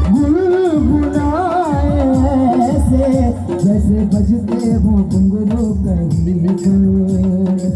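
Music: a wavering melody over a steady beat of low drum hits with shaker-like percussion.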